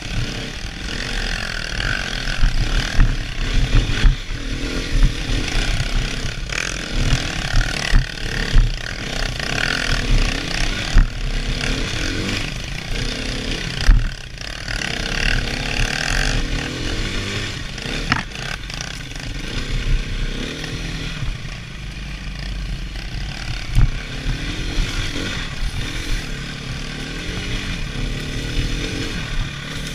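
Dirt bike engine running on a rough trail, revving up and down continually as the throttle is worked, with frequent sharp knocks and jolts from the bumpy ground.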